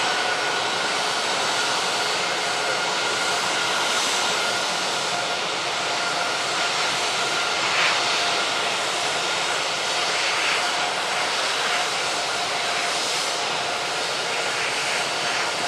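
Airbus A320-200 jet engines running at low power as the airliner taxis, a steady rushing noise with a constant whine through it.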